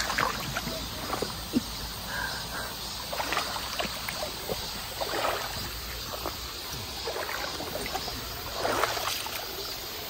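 Shallow stream water trickling over rock, with a few scattered small splashes and knocks from someone wading through it.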